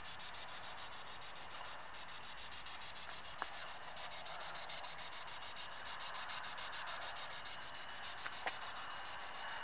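Night insects, crickets, trilling with a steady high tone and rapid pulsing chirps over a faint hiss. A small click about three and a half seconds in, and another near the end.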